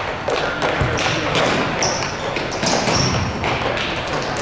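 Sound of a youth soccer game in play: a steady noisy background with a couple of dull thuds and a few brief high chirps.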